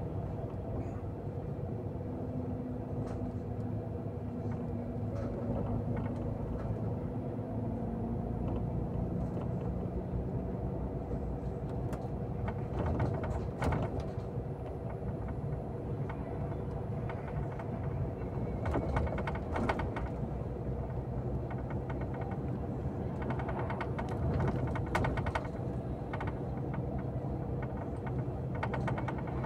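Steady drone of a bus engine heard from inside the moving bus, with clusters of short rattles and clicks now and then.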